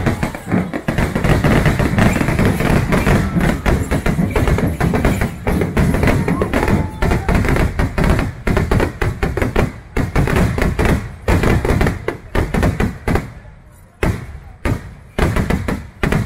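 Temple fireworks going off: a dense rattle of rapid bangs that thins after about ten seconds into separate sharp cracks, a few a second.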